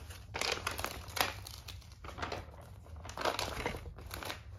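A diamond painting canvas and its paper and plastic cover sheets crinkling and rustling in irregular bursts as hands smooth them flat and lift them.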